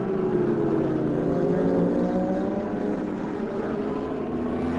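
Racing superbike engines at high revs, several at once, their pitch rising and falling as the bikes brake, accelerate and pass through the corners.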